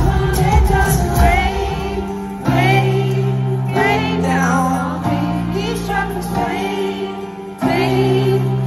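Live pop-rock band playing a song, with singing over the bass and chords. The band lifts into a new section about two and a half seconds in and again near the end.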